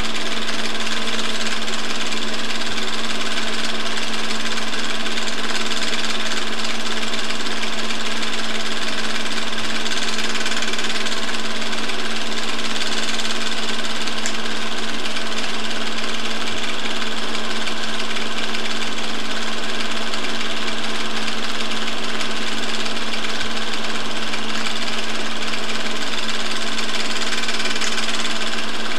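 Movie film projector running: a steady mechanical whirr and clatter with a constant low hum, unchanging throughout.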